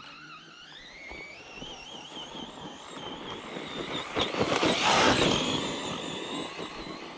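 Redcat Kaiju EXT RC monster truck's brushless electric motor whining as it accelerates, the pitch rising and wavering with the throttle. About four to five seconds in comes a loud rush of noise from tires and dirt, after which the whine fades as the truck moves away.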